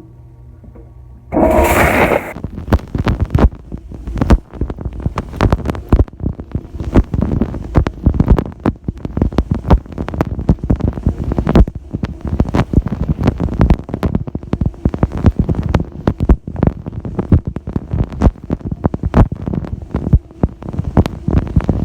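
Dishwasher starting a wash: a steady pump hum, then about a second in a loud rush of spraying water, followed by water from the spray arms splashing and drumming in irregular bursts.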